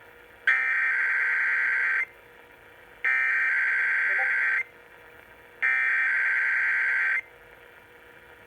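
Emergency Alert System SAME header: three identical bursts of warbling digital data tones, each about a second and a half long with about a second's pause between them. The header opens a Required Weekly Test and encodes the test's originator, event code, area and time.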